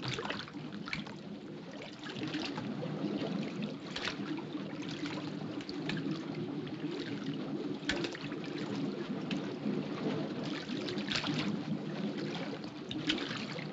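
Seawater flowing and sloshing across a flooded ship's corridor, with scattered splashes as a person wades into the water.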